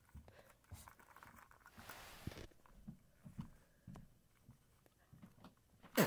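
Faint, scattered taps and light rustling of small toy cars being handled and moved over a carpet, with a louder knock near the end.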